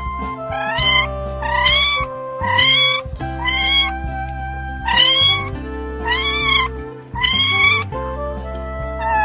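A cat meowing repeatedly, about seven short calls that each rise in pitch, roughly one a second, over background music with held notes.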